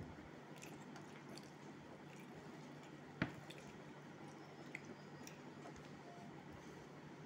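Fingers mixing boiled rice with masoor dal on a steel plate: faint, soft squishing with scattered small clicks, and one sharp click about three seconds in.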